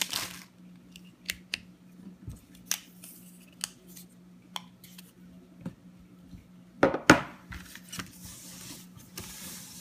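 Packaging and accessories being handled: scattered small clicks and taps, a louder clatter about seven seconds in, then soft rustling.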